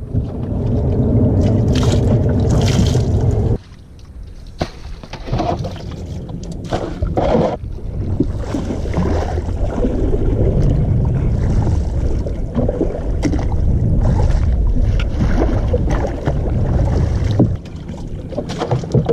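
Bamboo-shafted oars being pulled in a wooden rowing boat, with irregular knocks and splashes over steady wind noise on the microphone.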